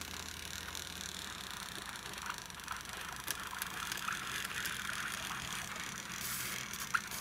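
Die-cast Chevrolet Camaro SS model car pushed by hand across a wooden floor: its small wheels roll with a steady hiss and scattered light ticks, with two short sharp clicks near the end.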